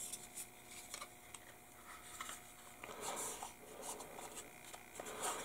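Faint rubbing and a few light clicks of small plastic model-kit parts being handled and turned over in the hands.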